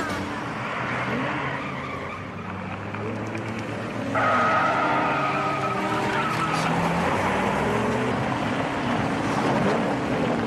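Film car-chase sound of an AMC Matador coupé: engine revving and tyres skidding, with a sharp tyre squeal that starts suddenly about four seconds in and holds for a couple of seconds.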